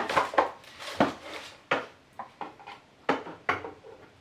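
Small hard plastic doll-house furniture pieces being handled, a string of sharp clicks and knocks, about six of them, some close together and some a second or more apart.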